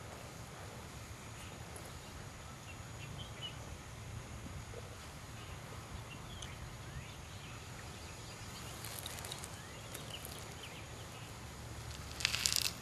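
Quiet outdoor ambience: a steady low rumble with a few faint, scattered bird chirps. A short, louder rustle comes near the end.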